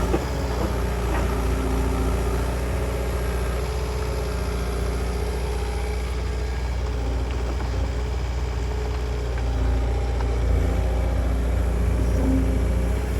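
Diesel engine of a heavy construction machine running steadily, with a deep rumble and a few faint knocks.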